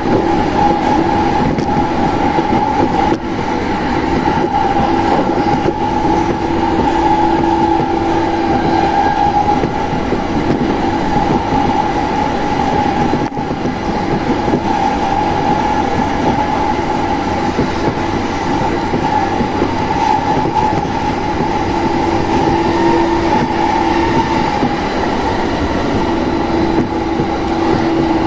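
A JR Sobu Rapid Line electric commuter train running at speed, heard from inside the car: a steady rumble of wheels on rail with a constant hum over it.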